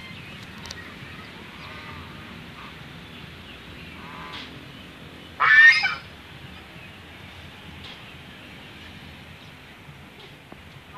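Domestic geese honking: one loud honk a little past halfway, a fainter honk about a second before it, and a few soft calls near the start.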